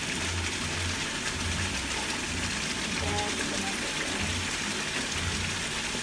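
Thick chilli-paste sauce sizzling and bubbling in a wok over a gas flame, a steady crackling hiss.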